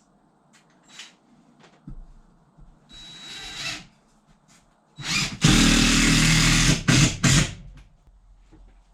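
Power drill driving a screw: a short run about three seconds in, then a longer steady run of about two seconds, followed by two quick bursts as the screw seats. A few light knocks come before.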